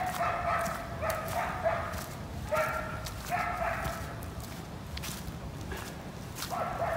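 A dog barking repeatedly, mostly in quick pairs, then pausing for a couple of seconds before one more bark near the end.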